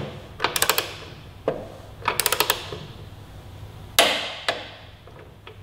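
Click-type torque wrench ratcheting on a motorcycle's rear axle nut: two short runs of quick ratchet clicks in the first half. About four seconds in there is a sharper metallic snap with a short ring, the wrench reaching its set torque.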